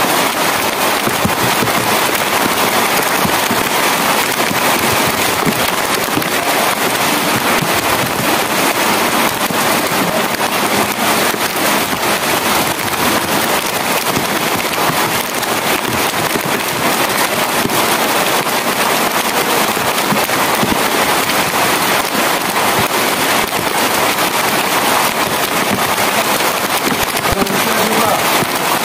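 Heavy rain falling steadily, a dense even rush of countless sharp drop impacts with no let-up.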